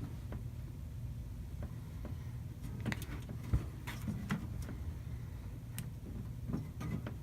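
Scattered clicks and light knocks from a desktop computer's metal case being handled as its stuck side panel is worked at, with one sharper knock about three and a half seconds in, over a steady low hum.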